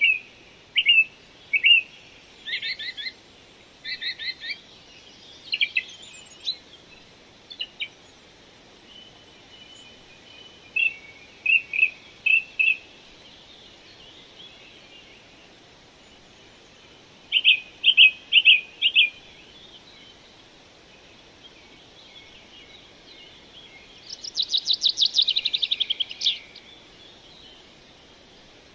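Birds chirping in short groups of a few quick high notes, with a fast trill of many notes near the end.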